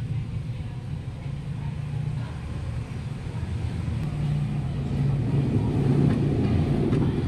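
A low, steady rumble that slowly grows louder, with a faint click or two.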